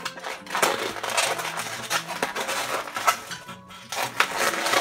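Inflated 260 latex modelling balloons squeaking and rubbing against each other as they are twisted together, a run of short, irregular squeaks.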